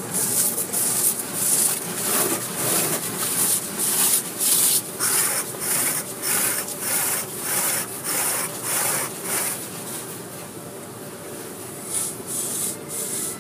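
Cloth strips of an automatic car wash swishing and rubbing back and forth over the car's windshield and body, heard from inside the car, about two swipes a second. The swiping fades about ten seconds in, with a short flurry of swishes near the end.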